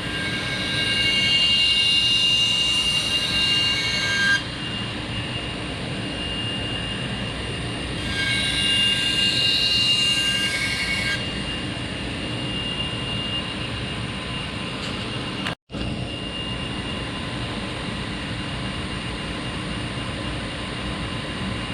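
Bader 2x72 variable-speed belt grinder running steadily with a 400-grit belt on an 8-inch contact wheel. Twice a knife edge is pressed to the belt, adding a louder hissing grind for about four seconds and then about three seconds, as the steel is ground down to roll a burr along the edge. The sound cuts out for an instant about three-quarters of the way through.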